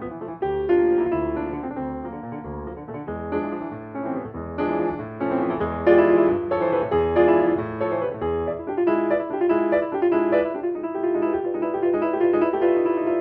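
Steinway grand piano played solo: a classical piece with quick, dense runs of notes over repeated chords, getting louder about six seconds in.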